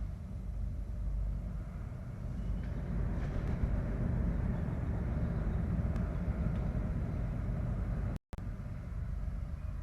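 Steady low rumble of outdoor air picked up by the falcon nest-box camera's microphone, cutting out briefly a little after eight seconds in.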